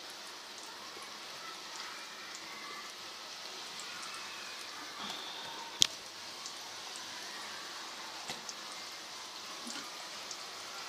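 Sticks of besan (gram-flour) dough deep-frying in hot ghee: a steady sizzle with scattered small crackles and pops, and one sharp click just past the middle.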